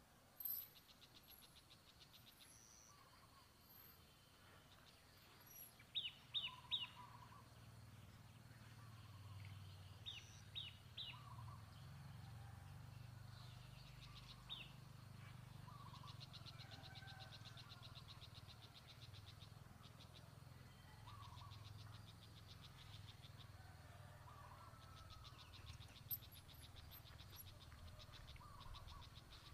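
Faint wildlife ambience: fast trills and scattered short chirping calls, with two groups of three sharp chirps, the loudest sounds, about 6 and 10 seconds in, over a low steady hum.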